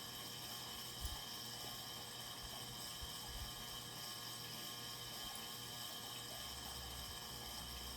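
Quiet, steady room tone: an even hiss with a low hum and a faint high whine, broken by a few soft low knocks about a second and three seconds in.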